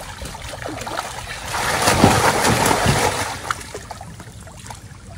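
Live wallago catfish tipped from a plastic crate into a net enclosure in a pond: a burst of splashing water about two to three seconds in, with lighter splashing and trickling before and after.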